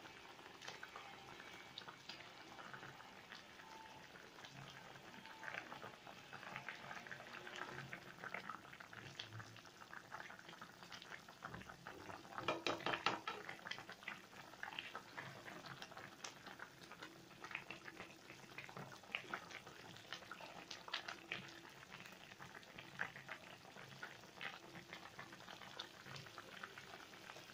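Pan of sotanghon noodle soup with luffa and fried tilapia simmering, giving a faint, irregular popping and crackling of bubbles as it nears done.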